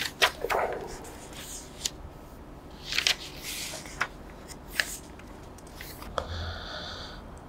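Pages of a thick paper book being leafed through and turned, paper rustling and flapping in a series of short, separate bursts.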